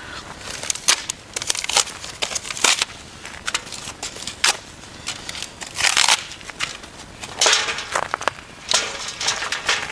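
Irregular crunching and rustling, with louder crunches every second or two, from someone shifting about on frozen, crusted snow and handling cardboard sheets and pieces of wood.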